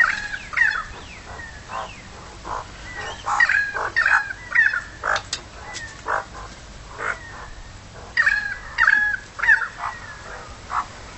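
Magpies calling: short calls that glide up and down in pitch, coming in bunches with quieter pauses between.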